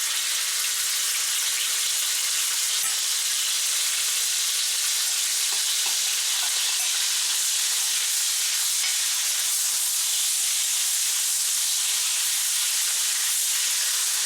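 Thin slices of pork belly sizzling in hot oil in a wok: a steady, loud frying hiss with occasional faint pops.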